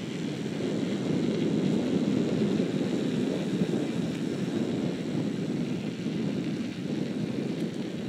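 Wind buffeting the microphone of a phone carried along a road in a moving vehicle, a rough rumbling noise that swells and eases, mixed with the vehicle's road noise.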